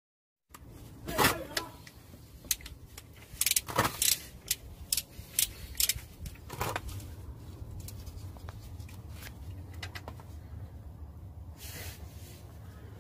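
Metal clinks and clicks of a socket on an extension bar being worked on a Peugeot 307's gearbox drain plug, a scattered run of sharp knocks over the first seven seconds. A steadier low hum follows.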